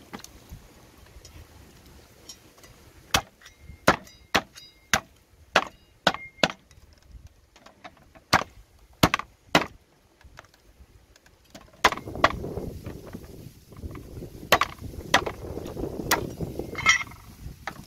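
A knife chopping through a raw duck on a wooden chopping block: about ten sharp, irregular chops between three and ten seconds in, then more chops over wind rumbling on the microphone.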